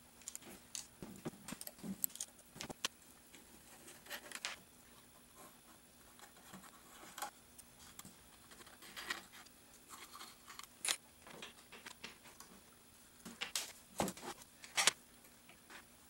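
Scattered clicks, taps and short scrapes of a screwdriver and small metal parts being handled while the casing of a milling-machine power feed is unscrewed and taken apart.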